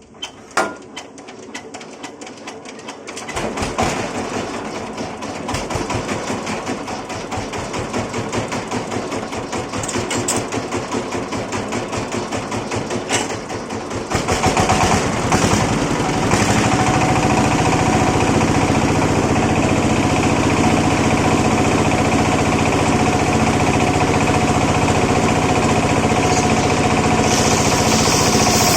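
The engine driving a homemade circular sawmill starts up with uneven knocking firing a few seconds in, then picks up about halfway through and settles into a steady, louder run.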